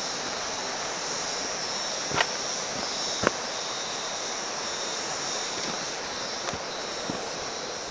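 Steady outdoor background hiss, with a few sharp footstep clicks on the rocky track about two and three seconds in.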